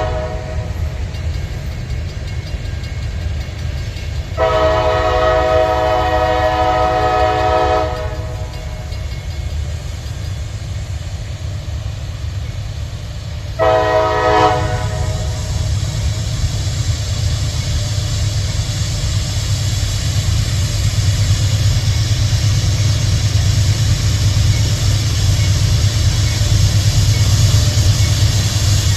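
Diesel locomotive air horn sounding a chord: one blast ends as the sound begins, a longer blast of about three and a half seconds follows about four seconds in, and a short one comes near the middle. Under the horn, heavy diesel locomotive engines rumble steadily. From about halfway they grow louder and hissier as they load up, pulling hard against the opposing locomotives in a test.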